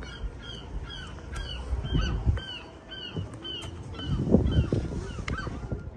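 An animal calling over and over in short, arched, high notes, about three a second. Bursts of low rumble come about two seconds in and again around four to five seconds in.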